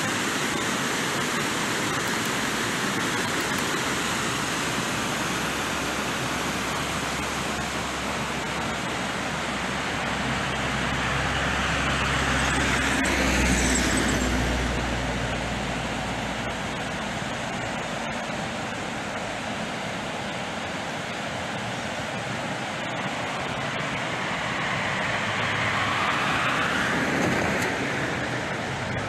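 Two road vehicles passing by, each swelling up and fading away, one about halfway through and one near the end, over a steady rush of the Panjshir river below.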